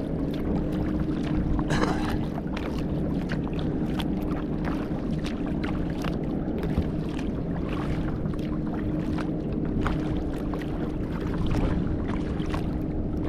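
Water splashing and slapping against a kayak as it is paddled through choppy, wind-driven waves, in irregular short splashes over a steady low rumble.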